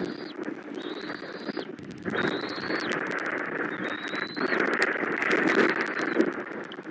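Bald eaglet giving long, thin, high begging whistles, each just under a second and rising slightly, several in a row, calling for food. Behind them runs a steady hiss of rain with scattered small ticks.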